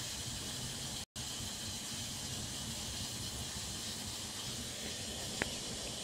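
Front-loading washing machine running: a steady hiss over a low hum as the drum turns. A very short silent gap falls about a second in, and a faint click comes near the end.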